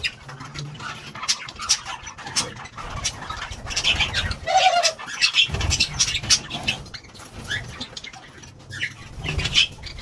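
Frillback pigeons cooing low and quail making short high calls, mixed with many short sharp clicks and an occasional flutter of wings.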